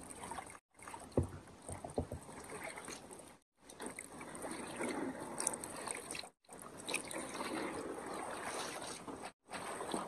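Water sloshing and splashing in a wooden gold pan (dulang) as black sand is washed down, with a couple of sharp knocks about a second in. The sound is broken by four brief dropouts into silence.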